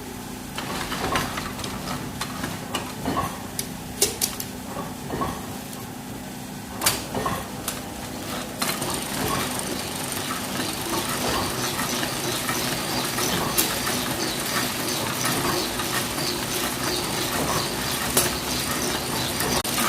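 Metal clinks and clicks of a printing plate being fitted and clamped onto a Toko 820 small offset press, over a steady machine hum. About nine seconds in, a steadier hissing machine noise comes in and stays.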